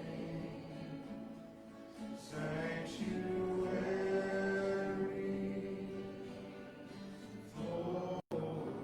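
Congregation singing a worship song, with long held notes and a brief dropout near the end.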